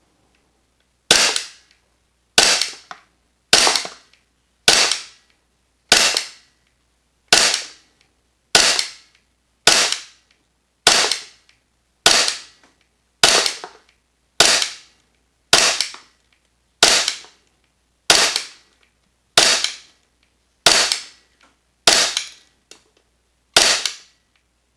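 VFC Umarex Glock 45 gas blowback airsoft pistol, fitted with an aftermarket energy-saving cylinder bulb and soft spring, firing single shots about twenty times at a steady pace of roughly one every 1.2 seconds. Each shot is a sharp crack with a short ringing tail.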